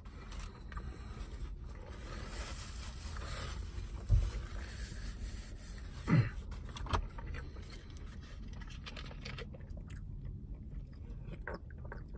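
Steady low rumble inside a car's cabin, with quiet chewing and handling noises and a few sharp thumps, the loudest about four and six seconds in.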